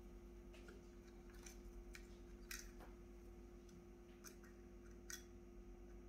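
Faint, scattered clicks and ticks of a small Phillips screwdriver and screws being handled while the new power button module is fitted into the drone, over a low steady hum.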